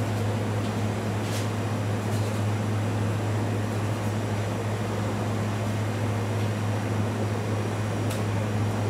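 Steady machine hum: a low, even drone with a hiss over it, and a few faint clicks about one and a half, two, and eight seconds in.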